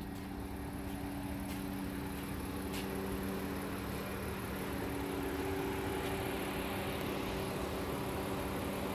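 Minivan engine idling with a steady low hum, growing slightly louder toward the end.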